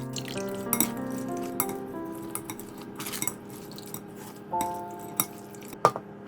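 Background music with steady melodic notes, over which utensils clink against dishes a few times, the sharpest clink near the end.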